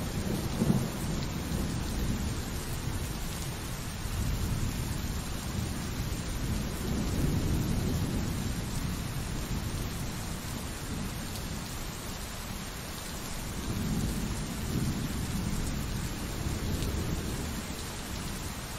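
Pouring rain as a steady hiss, with low rolling thunder rumbling underneath that swells twice, about seven seconds in and again around fourteen seconds.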